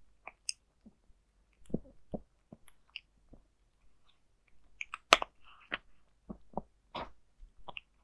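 A ginger cat crunching dry kibble from a bowl, picked up by close microphones: irregular crisp crunches and clicks of teeth on the pellets. They come sparsely at first and thicker from about five seconds in.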